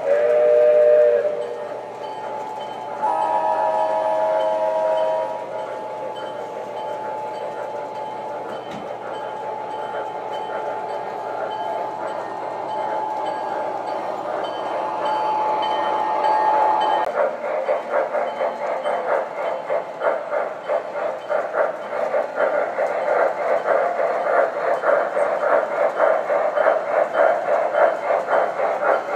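Sound systems of MTH Premier O-scale model locomotives. A diesel horn sounds twice in the first few seconds, then there is a steady engine drone. About halfway through this gives way to the rhythmic chuffing, about twice a second, of a smoke-puffing model steam locomotive running past.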